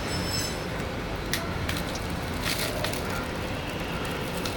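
Plastic packing wrap rustling and crackling now and then as wrapped sheets are handled, over a steady low background hum.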